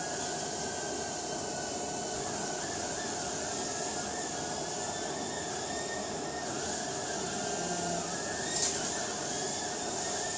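Eachine E010 micro quadcopter's coreless motors and small propellers whining while it flies, the pitch wavering up and down as the throttle changes. A single sharp tap comes a little after eight seconds in.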